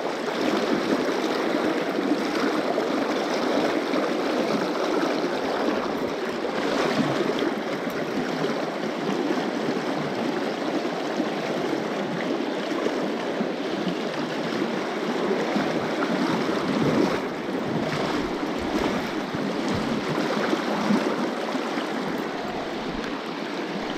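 Water of a small, shallow rapid rushing steadily over rocks, with a few faint knocks along the way.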